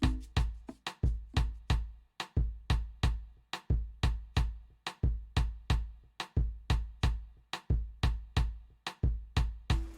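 Latin-inspired lounge music at a drum break: a deep kick drum and crisp percussion hits play a steady groove with no melody over it.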